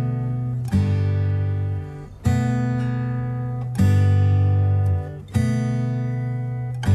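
Background music: an acoustic guitar strumming sustained chords, a new chord about every second and a half.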